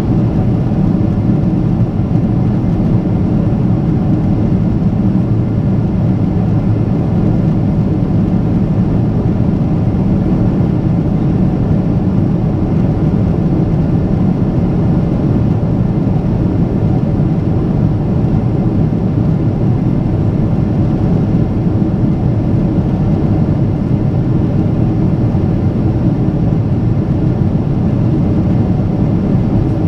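Steady jet engine and airflow noise heard inside the cabin of a Boeing 777-300ER, from its GE90-115B turbofans: a loud, even drone that holds without change.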